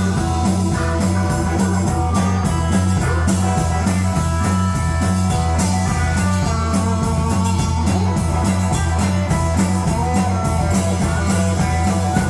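Blues-rock band playing an instrumental passage: guitar lines over a repeating bass riff and drums with cymbals.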